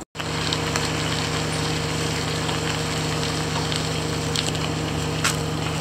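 An engine running steadily at a constant pitch, with a few faint clicks over it.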